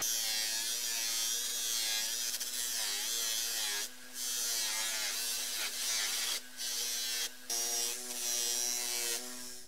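Bench polisher running, its motor holding a steady hum while a small steel part is pressed against the cloth buffing wheel, giving a hissing buff. The hiss breaks off briefly a few times.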